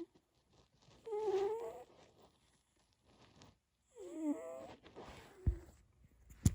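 A cat snoring with a drawn-out, pitched moan on two breaths about three seconds apart, the second falling in pitch. A low thump and a sharp knock follow near the end.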